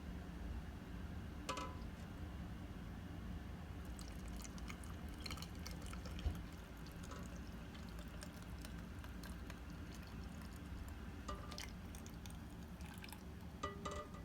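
Hot pickling brine pouring and dripping into a jar of cucumbers, with a few light clinks.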